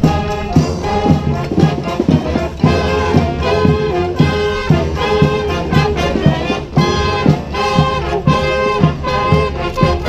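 Street brass band playing, horns sounding held chords and riffs over a steady beat.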